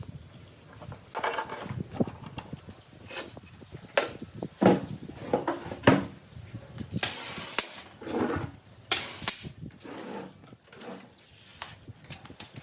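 Irregular knocks and clatters of wood and tools being handled on a workbench, the sharpest near the middle.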